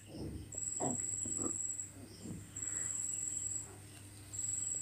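An insect trilling in the background: a high-pitched trill about a second long, heard three times at roughly two-second spacing, over a low steady hum. A few soft low knocks come in the first two seconds.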